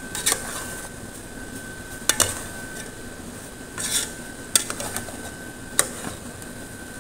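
A metal utensil clinking against a cooking pot, about five sharp separate knocks spread out over a few seconds, with a faint steady high tone underneath.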